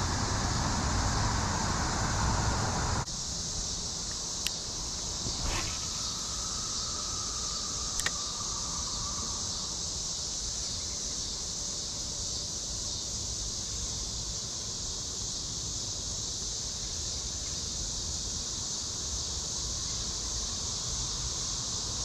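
Steady, high-pitched chorus of insects in the riverside trees. A low rumble underneath stops suddenly about three seconds in, and a few light clicks come between about four and eight seconds in.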